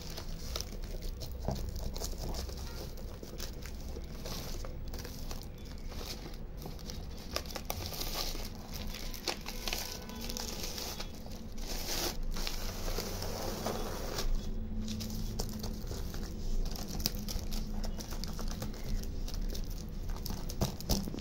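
Self-adhesive plastic contact paper crinkling and rustling as it is handled and pressed onto a cardboard box, with many small irregular crackles.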